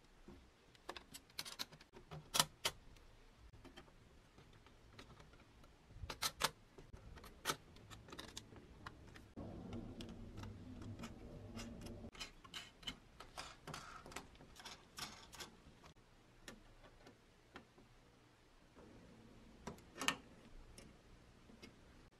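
Light clicks and taps of small painted pressed-steel toy parts and brass nuts and bolts being handled and fitted together on a wooden bench. A few seconds of rubbing and scraping come near the middle.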